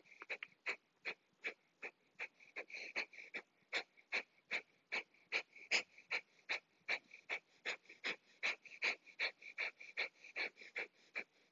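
Breath of fire, the kundalini breathing exercise: rapid, forceful exhales through the nose as the belly snaps back, roughly three short sharp puffs a second, with near-silent passive inhales between them.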